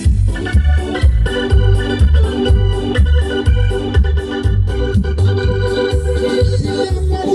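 Live keyboard band playing an instrumental dance tune: an organ-toned electronic keyboard melody over a steady pulsing bass beat.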